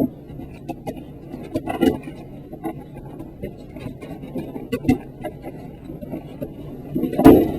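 Plastic clicks and knocks of Rubik's Cube pieces being handled and fitted back into the lubricated cube, with a louder knock about seven seconds in, over a steady low hum.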